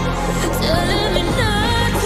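Background music: a song with a sung vocal over a steady backing.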